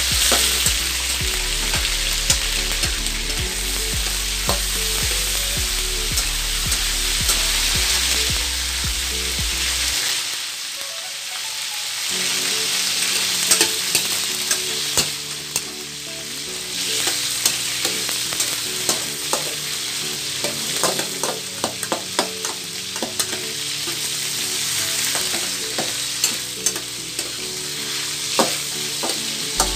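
Pork pieces frying in hot oil in a wok, a steady sizzle. In the second half a metal ladle stirs them, clicking and scraping against the wok many times.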